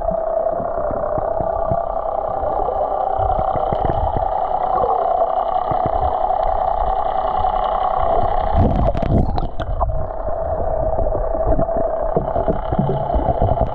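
Underwater sound: a steady drone of a boat engine carried through the water, with bubbling and bumps on the camera, and a short burst of sharp clicks about nine seconds in.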